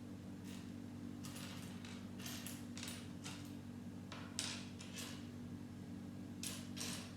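Loose plastic Lego pieces being handled and sorted through: about a dozen short, irregular rattles and clicks over a steady low hum.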